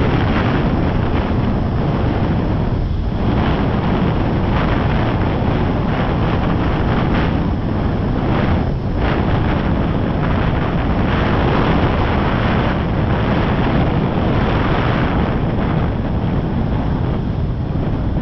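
Wind rushing over a camera microphone while kite foiling, a loud steady rumble with a few brief dips.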